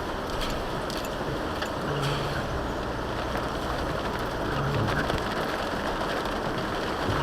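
Steady road and wind noise of a vehicle driving in rain, with faint scattered ticks of raindrops.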